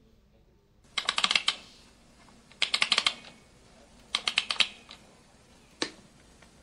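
Three short bursts of rapid, sharp clicks, each about half a second long and sounding like fast typing on a keyboard, then a single click near the end.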